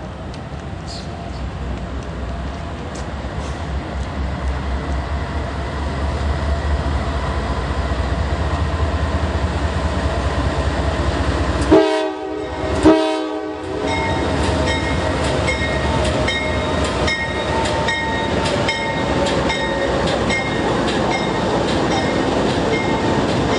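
A train approaching with a low rumble that grows steadily louder, then two short blasts of its locomotive horn about twelve seconds in. The train then passes with an even clicking of its wheels over the rail joints, about two clicks a second.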